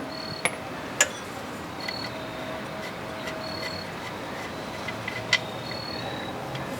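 A few light metallic clicks from the socket and the just-removed oil pressure switch being handled, over a faint steady background hum.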